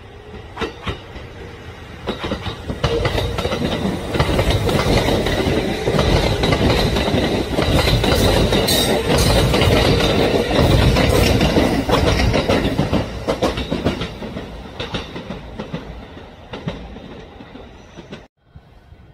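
A train running by on rails, its wheels clicking over the rail joints. The sound builds over the first few seconds, is loudest in the middle and fades away, then cuts off abruptly near the end.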